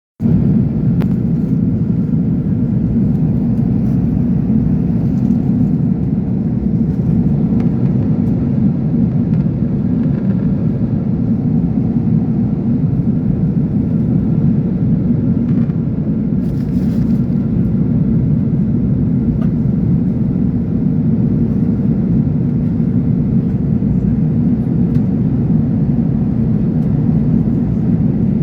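Jet airliner cabin noise at cruise altitude: a steady low roar of engines and airflow, with a faint steady hum underneath.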